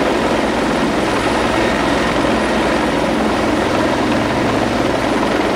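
Helicopter hovering low overhead, its rotor and turbine engine running steadily with a fast, even rotor beat.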